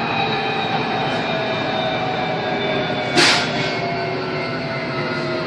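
Train running, heard from inside the carriage: a steady rumble with a motor whine in several tones that slowly falls in pitch as the train slows. A short, sharp hiss cuts in about three seconds in.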